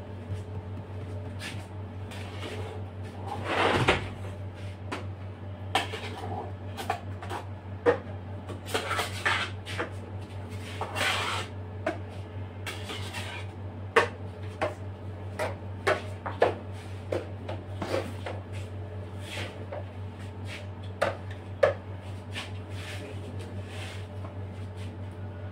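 Plastic cake scrapers scraping whipped-cream frosting off the sides of a cake and knocking against the cake turntable and cream tub, giving irregular clicks and knocks every second or so with a few longer scraping swishes. A steady low hum lies under it all.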